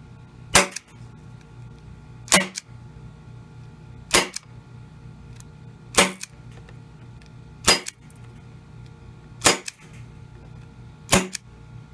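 Elite Force CQB CO2 airsoft revolver firing seven sharp shots, evenly spaced about every 1.8 seconds, through a chronograph. It is running on a freshly installed CO2 cartridge, so it shoots hot, at around 400–420 FPS.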